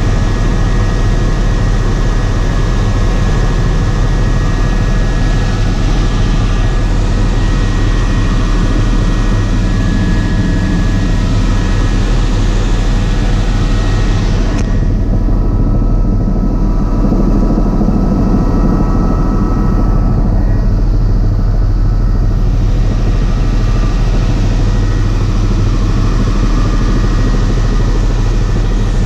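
Helicopter engine and rotor running steadily in cruise, heard from inside the cabin as a loud, even drone with a deep hum and a few steady whining tones. The higher hiss thins out for several seconds midway, then returns.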